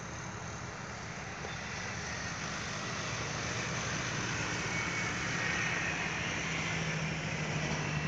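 An engine running steadily, slowly growing louder, with a low hum strengthening over the last few seconds.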